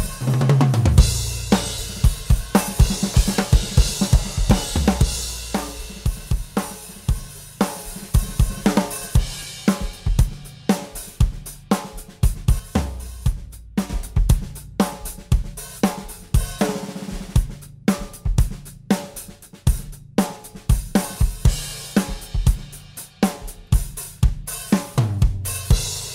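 A recorded drum kit groove (kick, snare, hi-hat and cymbals) playing through a VCA bus compressor to demonstrate its compression, with a cymbal crash about a second in and another near the end.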